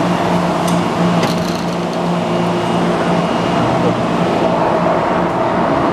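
Taipei Metro C321 refurbished train running, heard from inside the car: a loud, steady drone of traction motors and running gear with several held tones. A few light clicks come about a second in, and the low hum drops in pitch a little past halfway. This train set is known for out-of-round wheels and abnormal inverter noise.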